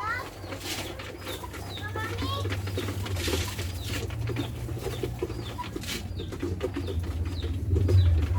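Backyard laying hens clucking and calling in short notes, with a few brief bursts of rustling or wing flapping, over a steady low hum.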